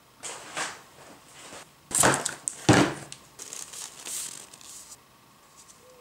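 Hands working on a worktable: rustling and scraping, with two louder knocks about two seconds in and a little before three seconds.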